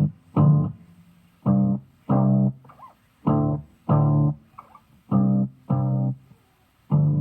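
Guitar loop played from a Ditto looper and shifted down one octave by a Donner Harmonic Square pedal, fully wet, through a Line 6 amp's clean channel. Short plucked notes come in pairs, about one pair every second and a bit.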